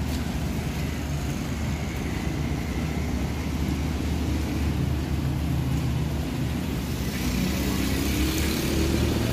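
A motor vehicle's engine running close by in the street, its pitch rising slightly in the last couple of seconds, over a steady hiss.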